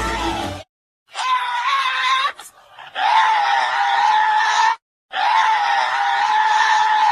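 Custom-made Gwythaint creature screeches: a short burst, then three long, harsh screeching calls, each held at a fairly steady pitch.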